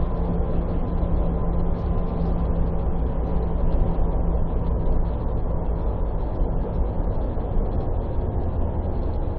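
ČKD Tatra tram running along the track, heard from inside the car: a steady rumble of wheels on rails with a faint steady hum.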